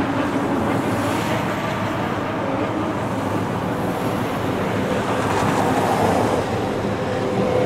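Road traffic noise: a steady hum of vehicles on a wide road, with a car passing about six seconds in and a heavy truck's engine getting louder near the end as it approaches.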